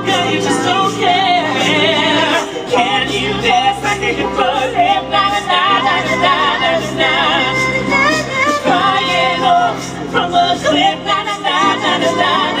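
An a cappella choir of mixed female and male voices singing in harmony, carried over headset microphones, with a low sung bass line holding long notes underneath.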